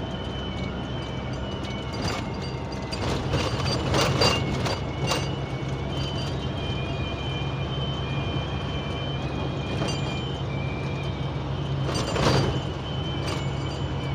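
Inside a truck cab at highway speed: steady engine and road drone with a thin, high whistle that wavers in pitch, the cab whistle the driver complains of. Rattles and knocks sound over bumps about four seconds in and again near twelve seconds.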